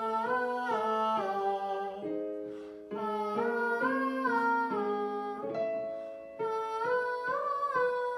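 A man singing a vocal warmup scale on an open vowel, stepping up a few notes and back down, three phrases in a row, while a Casio digital piano plays block chords under each note.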